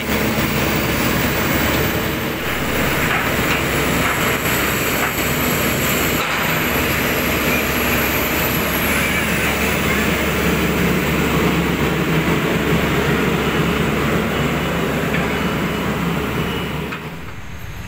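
Kobelco SK200 hydraulic excavator's diesel engine running steadily during a performance test, now starting and running after a wiring repair. A faint high whine sits over it through the middle, and the level drops a little just before the end.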